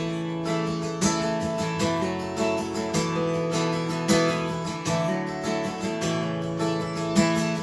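Acoustic guitar strumming chords in a steady rhythm, an instrumental passage of a country-pop ballad with no singing.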